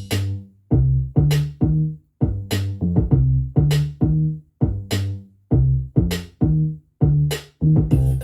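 Electronic beat with drum-machine hits and deep bass notes, played loud through an ONN Party Speaker 2 with its bass boost switched off.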